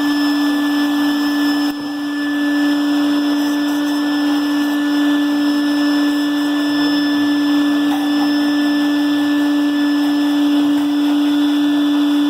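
Shop vacuum motor running steadily, of the kind used to draw out blasting media while carbon-cleaning intake valves, with a short dip in level about two seconds in.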